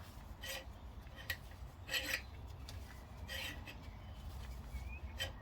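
Short metallic clinks and scrapes of hand tools on a brake caliper bolt, about five, spaced irregularly a second or so apart.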